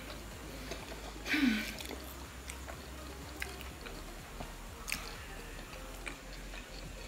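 Quiet chewing and mouth sounds of people eating submarine sandwiches, with scattered small clicks. About a second and a half in comes a brief louder sound with a short falling hum.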